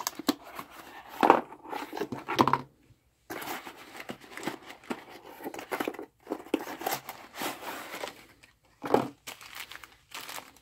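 Cardboard packaging being opened and emptied by hand: irregular rustling and scraping of the box flaps, with a few sharper clicks. A plastic bag of test leads crinkles near the end.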